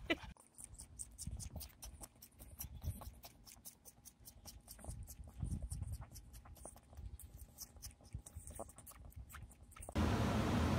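Baby goat sucking on a pacifier: a fast run of faint wet clicks, several a second. About ten seconds in, it gives way to a steady hiss with a low hum.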